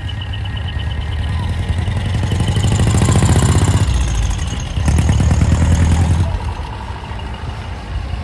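Diesel engine of a flatbed truck pulling away and passing close by, growing louder as it nears. About four and a half seconds in the engine eases off for a moment and then pulls again, before fading as the truck drives off.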